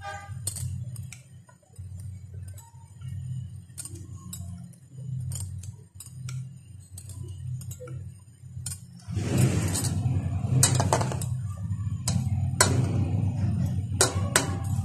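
Steel ladle clicking and clinking against a steel pot as rasmalai dough balls are lowered one by one into hot milk, over a steady low hum. About nine seconds in, a louder rushing noise sets in, with the clinks coming thicker.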